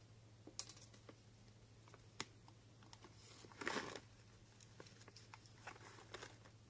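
A cat crunching hard dry Greenies treats: faint, scattered crunches, with one louder brief rustle about three and a half seconds in.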